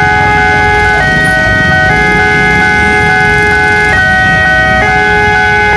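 Railway level-crossing warning siren sounding as the barriers come down, warning that a train is approaching. It is a loud electronic two-tone alarm that alternates between two chord-like tones, about two seconds on one and one second on the other, repeating. Underneath it is the low rumble of waiting motorbike engines.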